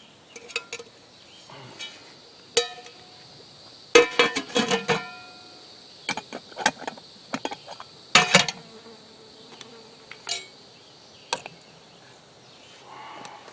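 Metal cookware clinking and clanging, with a utensil knocking against metal plates and pot while food is served; several strikes ring on briefly, the loudest cluster about four seconds in and another loud clang about eight seconds in. A steady high insect buzz runs underneath.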